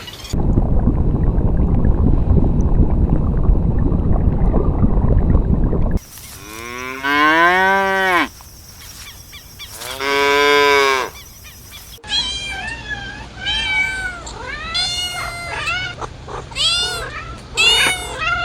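A loud, even rushing noise for the first few seconds, then a cow mooing twice in long drawn-out calls, then a cat meowing repeatedly in short rising-and-falling calls.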